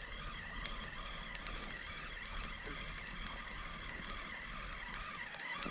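Spinning reel being cranked during a lure retrieve: a soft, steady whir of the rotor and gears.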